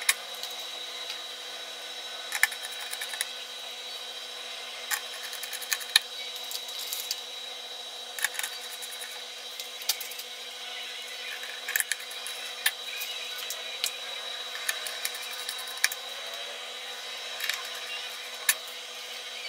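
Small screwdriver driving screws into a graphics card's backplate: irregular light clicks and ticks over a steady hiss.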